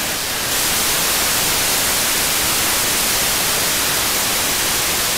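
Steady static hiss from an FM receiver on the 2 m ham band, tuned to the ISS downlink with no signal left to demodulate. About half a second in the hiss steps up, louder and brighter, then holds even.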